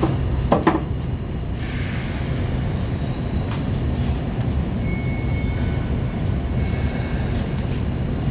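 Hong Kong Light Rail Phase I car standing and running its equipment with a steady low hum. There are a couple of sharp clicks about half a second in, and a short hiss about a second and a half in.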